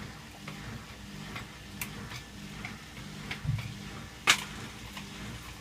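Candy Aquamatic 1000T compact washing machine in the wash phase of an empty descaling cycle: the motor hums steadily while the drum turns, with irregular light ticks and one sharper click about four seconds in.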